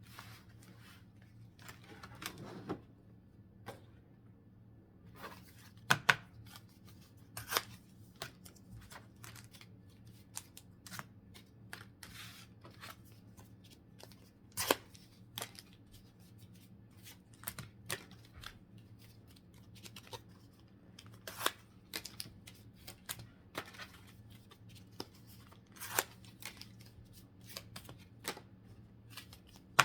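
Pokémon card blister packs being handled and opened: irregular crinkles, clicks and rustles of plastic and cardboard packaging, some sharp snaps among them, over a faint steady hum.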